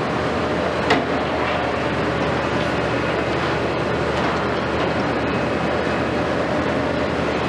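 Heavy demolition excavators' diesel engines running steadily, with a dense steady noise over them. A sharp knock sounds about a second in.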